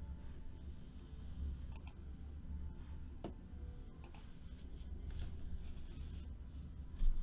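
Quiet room tone with a steady low hum, a few faint scattered clicks, and a dull thump near the end.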